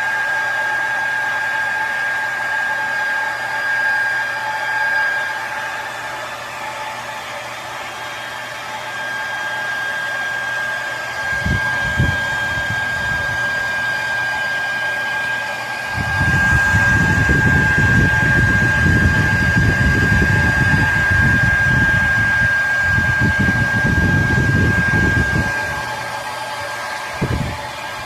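Hair dryer running steadily, a hiss with a constant high whine. About halfway through, a loud, gusty low rumble starts and lasts about ten seconds.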